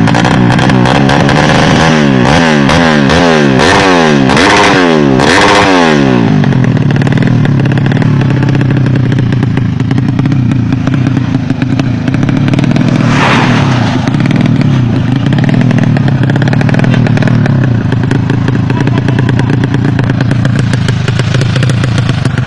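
Racing motorcycle engine at high revs, rising and dropping in pitch again and again for about six seconds, then running steadily.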